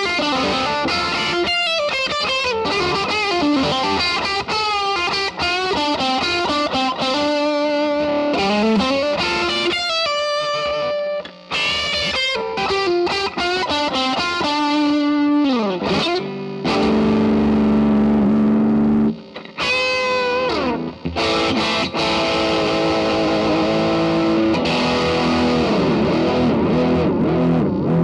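2019 Squier Stratocaster with single-coil pickups, played through a Vox AD-100VT XL amp on its dirty channel: a lead-guitar passage of quick runs and string bends. Around the middle the pitch falls steeply, then chords ring on.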